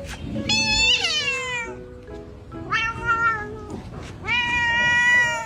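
A cat meowing three times: the first call slides down in pitch, the last is long and drawn out.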